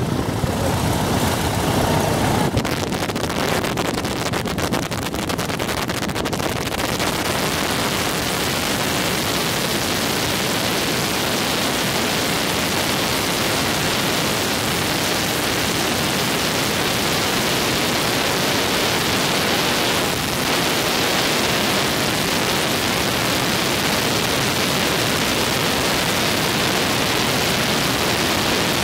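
Biplane engine and propeller at takeoff power during the takeoff roll, heard from the open cockpit as a loud steady rushing noise, with gusty wind buffeting the microphone in the first several seconds.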